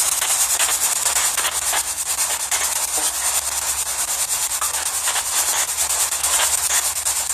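Loud, steady static hiss that flickers rapidly, over a low steady hum.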